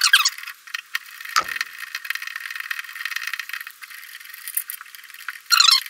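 Metal squeaking and scraping with many small clicks as long screws are backed out of a chrome shower valve trim plate with a Phillips screwdriver and the plate is worked loose. There are sharper squeaks about half a second in and again near the end.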